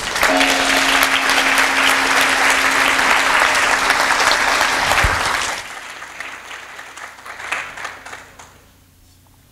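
Audience applauding: full, dense clapping for about five and a half seconds, then thinning to scattered claps and dying away.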